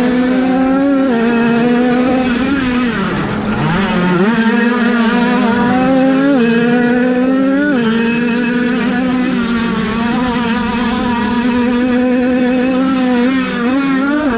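High-revving 50cc two-stroke motocross bike engine at racing speed: the pitch climbs slowly and drops sharply several times as gears change, with a brief throttle-off dip and re-acceleration about three seconds in.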